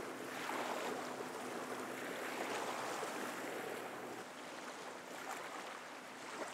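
Outboard motor of a fishing boat running at speed: a faint low steady hum under the rush of water and waves. The sound gradually fades as the boat moves away.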